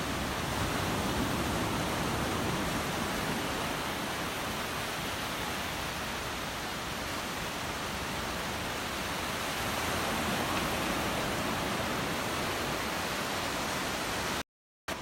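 Steady rush of surf on a Gulf of Mexico beach, swelling slightly about a second in and again about ten seconds in. The sound cuts out for a moment near the end.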